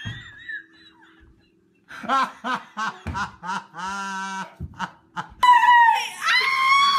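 A person laughing in quick, rhythmic bursts that fade out within the first two seconds. The laughter starts again about two seconds in and ends in one drawn-out wail. From about five and a half seconds a loud, high-pitched scream is held steadily.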